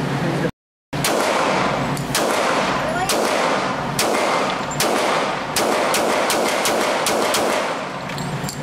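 Handgun shots on an indoor range, roughly one a second, with fainter shots in between, each followed by echo off the concrete-block walls. The sound cuts out completely for a moment just under a second in.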